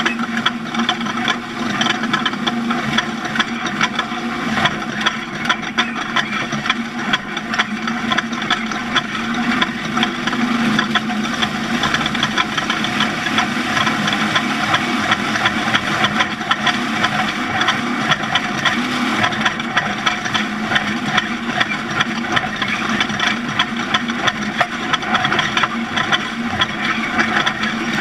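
Off-road race vehicle's engine running steadily while under way, with frequent short rattles and jolts over the rough ground.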